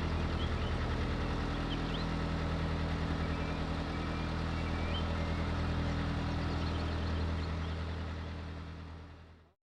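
An engine running steadily at idle with an even throb, with a few faint bird chirps above it. It fades out near the end.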